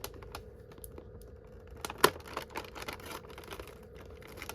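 Light clicks and scratches of fingers picking at and lifting the door of a cardboard advent calendar box, with one sharper click about two seconds in.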